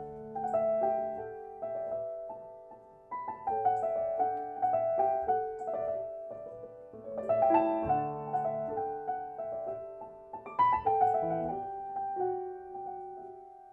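Solo piano playing gentle single notes and chords that ring and fade between strikes.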